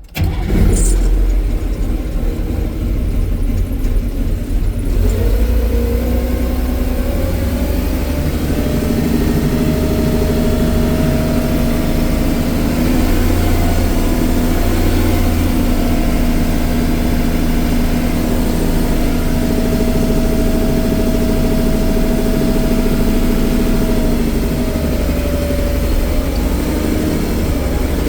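Taylor forklift's engine starting and running loudly, with a steady pitched whine coming in a few seconds in and dropping away near the end.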